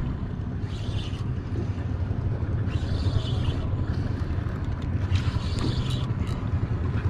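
A small fishing boat's motor running steadily at trolling speed, with wind on the microphone and a hissing rush of water or spray about every two and a half seconds.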